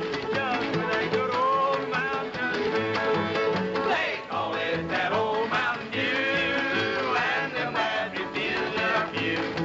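Live old-time country string band playing an up-tempo number: a steady bass-and-rhythm beat under a melody full of sliding, bending notes.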